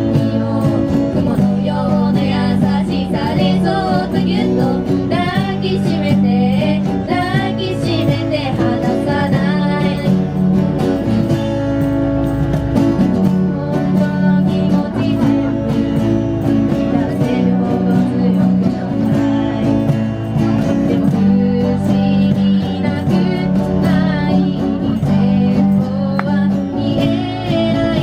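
Live band performance: a singer over guitar accompaniment, playing continuously.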